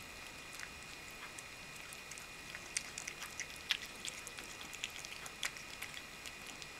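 A cat eating wet food from a bowl: irregular small wet clicks and smacks of chewing, busiest in the middle.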